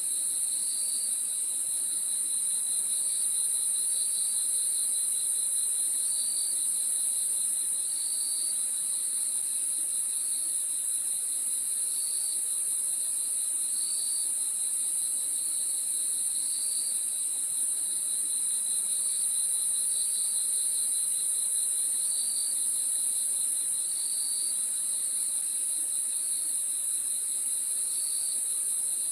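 Crickets chirping at night: a steady, high-pitched shrill trill from many insects, over a lower pulsing trill with short chirps repeating every second or two.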